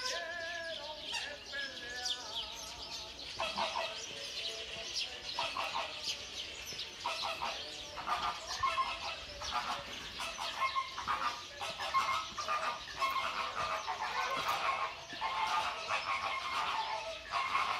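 A chorus of birds. Many short, repeated calls come in from about three seconds in and go on to the end, over continuous high twittering of small birds.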